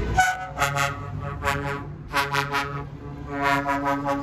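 Tour bus horn sounding a rhythmic string of short toots in small groups, then a longer blast near the end. The bus engine runs underneath as it passes.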